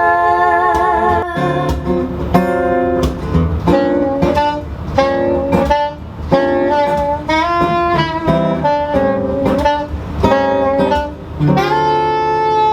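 Instrumental passage of a live acoustic band: guitar playing chords and a melody line held over it, with no singing.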